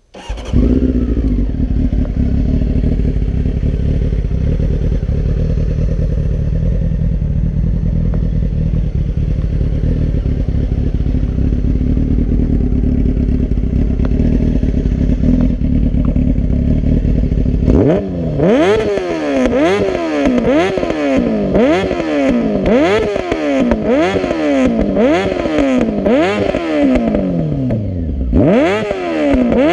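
Honda CBR600 F3's inline-four engine comes in abruptly and idles steadily for about eighteen seconds. Then it is blipped hard again and again, revs rising and falling about once a second, with sharp crackling pops from the exhaust as it backfires on the overrun.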